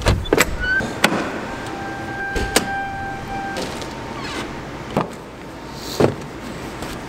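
A metal door latch clicks and the door is opened. A steady squeal follows for about two seconds. Then come clunks and handling sounds as a car trunk is searched, with two sharper knocks near the end.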